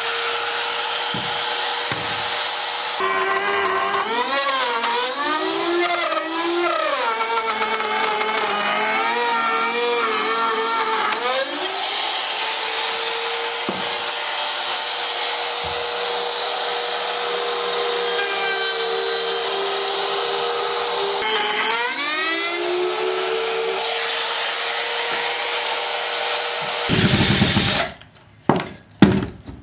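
Small electric router running at high speed, its motor pitch sagging and wobbling as the bit cuts through quarter-inch birch plywood along a rib template. The router spins back up twice. It stops near the end, and a few short, sharp noises follow.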